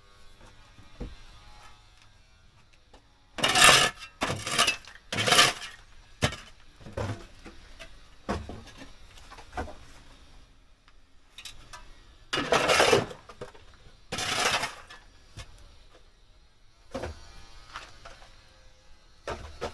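Clattering and scraping of objects being shifted, in five loud bursts of about half a second each: three close together, then two more about eight seconds later. Lighter clinks and knocks fall between them.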